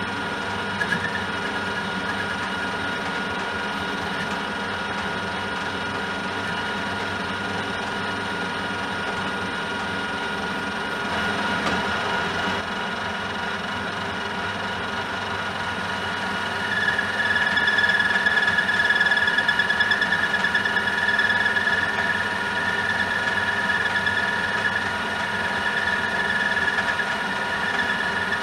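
Metal lathe running, its chuck spinning an aluminium bar while a cutting tool turns down the bar's outside diameter. About two-thirds of the way through, a steady high-pitched squeal from the cut comes in and the sound grows louder.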